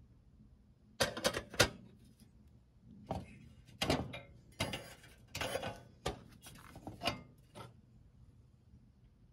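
Metal parts of a Radius No.119 pressure lantern being handled: a quick cluster of sharp clicks about a second in, then a series of metal clinks, scrapes and rubs as the hood and globe frame are moved and fitted, stopping near the end.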